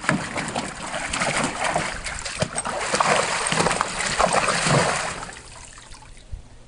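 Water splashing and sloshing in a plastic kiddie pool as a large Akbash puppy thrashes about and dunks its head. There are many irregular splashes, and they die down about five seconds in.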